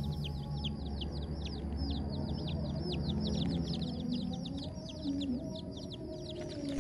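Baby chicks peeping continuously, a fast stream of short, high, downward-falling peeps, several a second.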